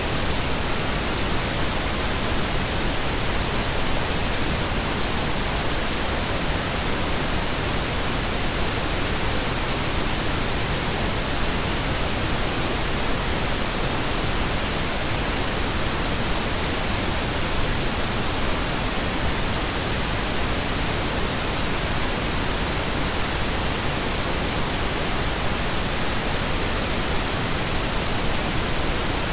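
Steady, unchanging pink noise: an even hiss spread across all pitches with no events or changes, played as a sleep sound.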